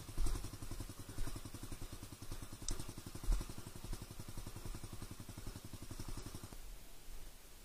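Motorcycle engine running at a low, even beat, with a few light clicks, and then stopping about six and a half seconds in.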